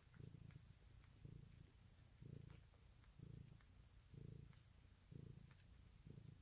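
Faint, steady purring from a mother cat in labor, with newborn kittens nursing at her belly. The purr swells and eases in a rhythm of about once a second.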